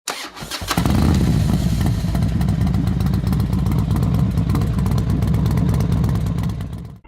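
Dragon fire-breath and roar sound effect: a few sharp crackles at the start, then a long, deep, rumbling roar that fades away near the end.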